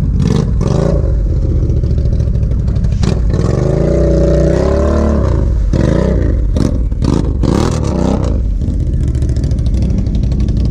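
ATV engine revving hard in deep mud, its pitch rising and falling, with one long rev near the middle, as the machine strains to pull through. Short clattering splashes and knocks are heard through it.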